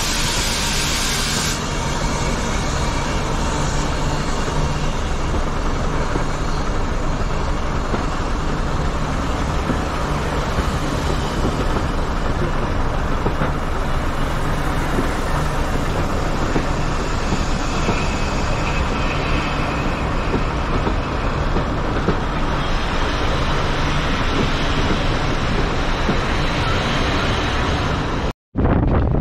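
A moving train: a steady rumble of running noise with a constant low hum, cut off abruptly near the end.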